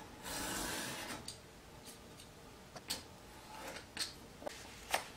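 Utility knife drawn along a steel ruler through a stack of folded paper: one scraping cut about a second long near the start, then a scattering of light, sharp clicks and taps.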